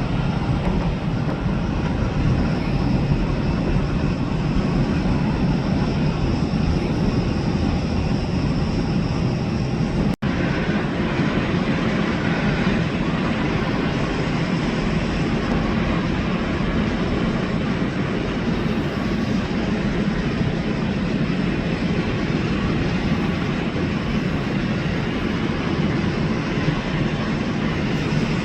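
Jet airliner engines running with a steady noise and a faint high whine, cut off for an instant about ten seconds in.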